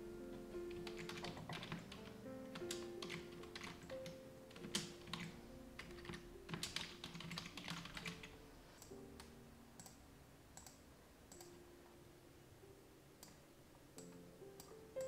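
Computer keyboard typing, quick irregular key clicks that thin out after about nine seconds, over soft piano background music.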